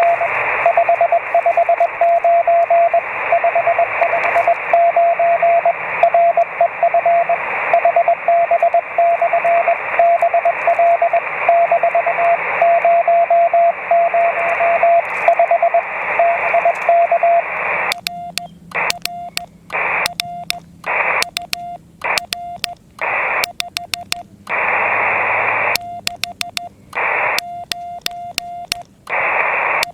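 HF transceiver on 20 m receiving Morse code: a keyed beep of one pitch over steady band hiss. About 18 seconds in it turns to sending Morse. The receiver hiss drops out while the sidetone beeps, comes back between characters, and sharp relay clicks mark each switch between transmit and receive.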